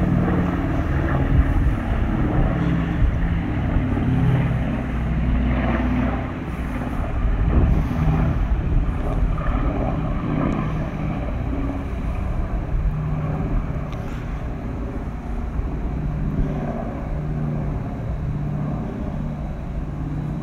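Piston-engined WWII-era propeller aircraft droning overhead, the engine pitch shifting slightly as they fly past.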